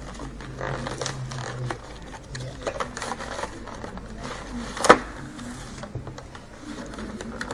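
Cardboard and clear plastic packaging being handled: the plastic tray scraping and rustling as it slides out of its cardboard sleeve, with many small clicks and one sharp plastic click about five seconds in.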